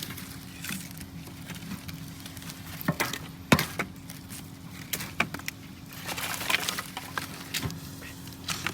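Irregular light clicks and knocks of things being handled and set down, a few coming close together about six seconds in, over a steady low hum.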